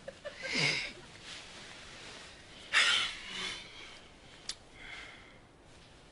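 Men's breathing as they lie in bed: a few short, noisy breaths or exhales, the loudest about three seconds in. A single sharp click comes about four and a half seconds in.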